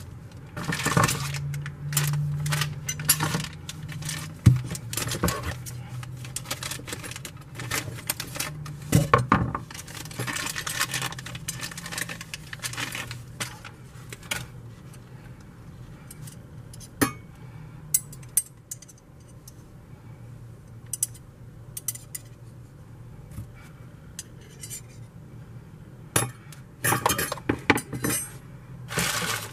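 Stainless steel hand-mixer beaters and dough hooks clinking and knocking against each other and the counter as they are handled, in scattered bursts, sparse through the middle and busy again near the end. A low steady hum sits underneath for the first half.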